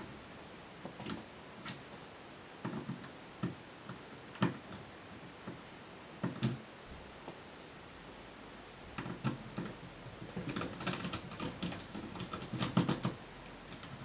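Small precision screwdriver clicking and scraping against the screws and metal bracket inside an opened white MacBook: scattered single light taps, then a quicker run of small clicks in the second half.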